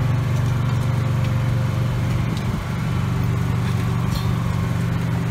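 A steady engine drone, with a few faint clicks of hands handling metal parts.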